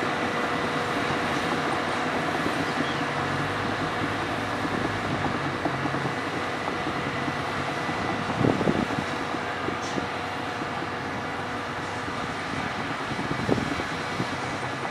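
CAT 320D hydraulic excavator travelling on its steel crawler tracks, its six-cylinder diesel engine running steadily under the clank of the track links. A faint steady whine runs under it, and two louder knocks come about eight and a half and thirteen and a half seconds in.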